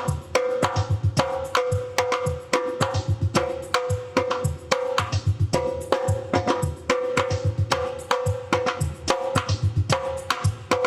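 Tumbadora (conga) playing a steady, repeating Brazilian groove: a ringing open drum tone over low thumps and crisp, sharp strokes, cycling evenly throughout.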